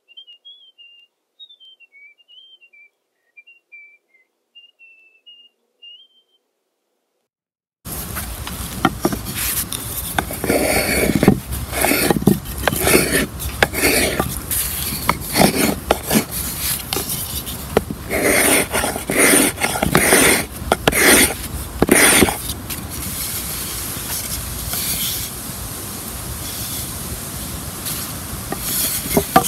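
A bird sings a short run of high chirps. From about eight seconds in, a knife shaves a pale ash strut in a series of scraping strokes, heavier in the middle and lighter and steadier near the end.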